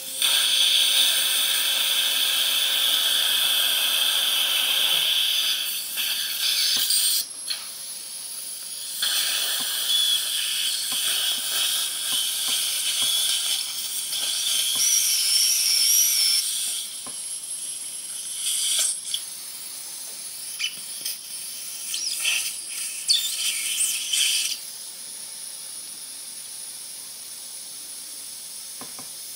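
Dental surgical suction hissing on and off in spells of a few seconds, with a faint steady motor tone under the first few seconds. The hiss drops away over the last few seconds.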